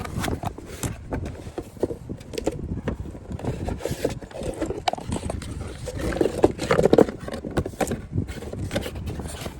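Knocks, clicks and scraping of a computer power supply unit being handled and fitted into a PC case, with the loudest knocks about six to seven seconds in.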